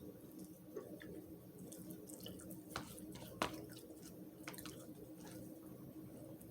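Faint eating sounds: scattered small clicks and smacks of chewing and utensils, two a little louder about three seconds in, over a steady low hum.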